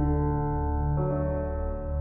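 Ambient background music: sustained layered chords over a low, steady drone, with the chord changing about a second in.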